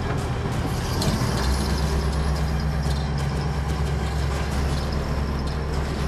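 Fishing boat's engine running steadily, a low hum that grows stronger and steadier about a second and a half in, under a constant hiss.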